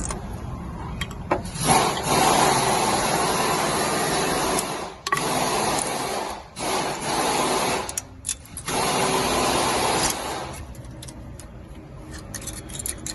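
Air wrench run in four bursts of one to three seconds with short pauses between them, working a fastener loose on the van's rear brake assembly.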